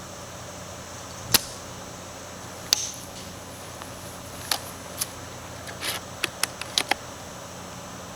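A JG Bar-10 spring-powered bolt-action airsoft sniper rifle with an SP190 spring firing 0.4 g BBs: one sharp snap of a shot a little over a second in, then a second click and a quick run of lighter clicks and clacks in the second half.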